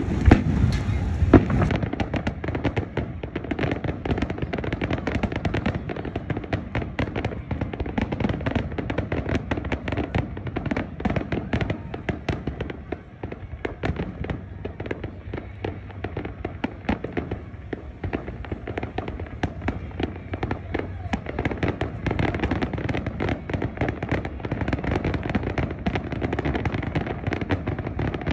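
Aerial fireworks display going off, a dense, irregular run of bangs and crackles coming many times a second.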